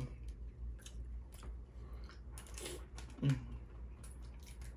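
Close-miked chewing and lip smacking of someone eating Dungeness crab, with scattered wet clicks and a brief hummed sound a little over three seconds in.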